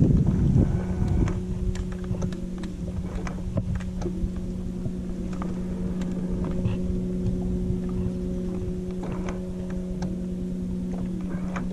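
Bow-mounted electric trolling motor running with a steady hum, with scattered light clicks over it.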